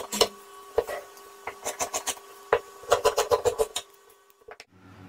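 Fabric scissors snipping through cloth along a marked cutting line. There are quick runs of short snips at the start and again about three seconds in, with single snips between them. The cutting stops near the end.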